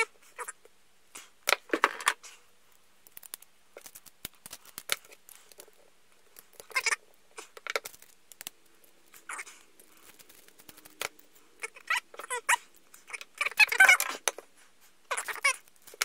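Intermittent small metallic clicks and clinks as a Lockwood 334C45 padlock is gutted by hand, its brass cylinder being worked out of the body. The busiest, loudest clatter comes about two seconds before the end.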